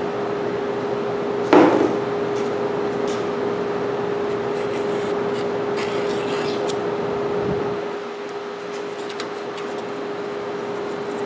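Thin wooden stick scraping and rubbing as it spreads thickened epoxy along a steel edge, over a steady hum. A single knock comes about one and a half seconds in.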